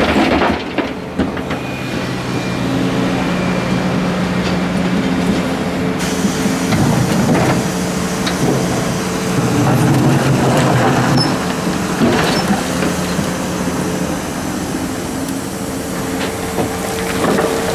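Volvo EC480D excavator's diesel engine running at working revs, its pitch and load shifting as it works, with a few sharp knocks and scrapes of the bucket in crushed concrete and dirt.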